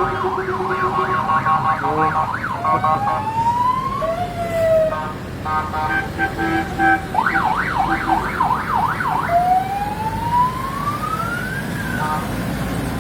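Several sirens and horns sounding at once: fast up-and-down yelping sweeps, slow rising wails, and steady multi-note horn blasts, over a low engine rumble.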